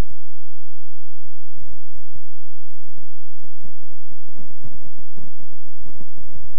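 Steady low electrical hum with irregular crackling clicks, sparse at first and coming thick and fast from about four seconds in.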